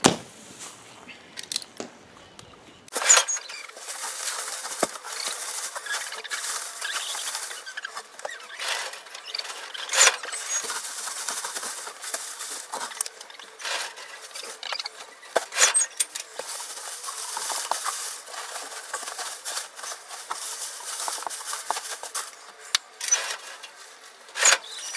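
Dry straw rustling and crackling as it is pulled loose from a compressed bale and packed by hand into a chicken coop as bedding. After a quieter first few seconds with a few clicks, the rustling runs on continuously with frequent sharp crackles.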